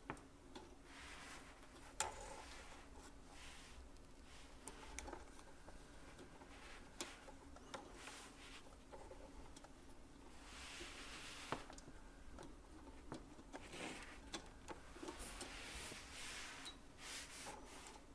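Faint handling sounds: fingers and metal tweezers rubbing and clicking against the small movable front parts of a brass model locomotive, the coupling and brake hoses. A few small sharp clicks stand out.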